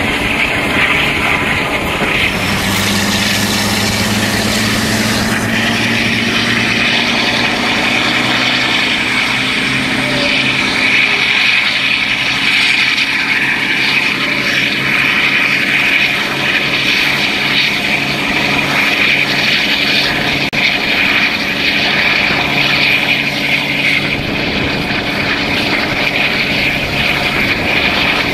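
Class 52 'Western' diesel-hydraulic locomotive's twin Maybach engines working hard at the head of the train, a loud, steady drone heard from an open carriage window along with wheel-and-rail noise and wind. The engine note climbs over the first several seconds and then holds.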